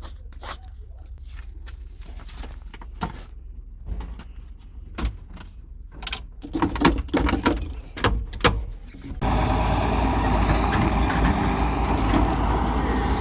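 Low engine rumble with scattered clanks and knocks, then a sudden switch about nine seconds in to loud, steady machine noise.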